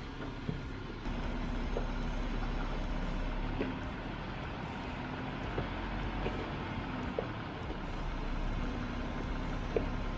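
Jeep Wrangler's engine running low and steady as it crawls slowly over rock ledges, with a few light ticks and knocks from the tyres working over the rock.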